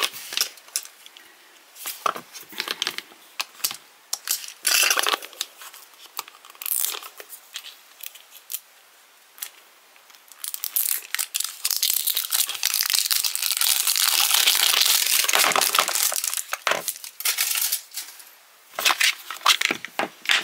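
A cardboard blind box being torn open by hand: scattered taps and crinkles, then several seconds of steady tearing and scraping of cardboard from about ten seconds in, then a few more clicks and rustles as the box's parts are handled.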